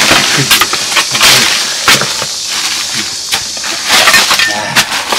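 A steel spade digging and scraping into packed soil and tangled debris, with repeated scrapes and clunks as dirt is scooped out.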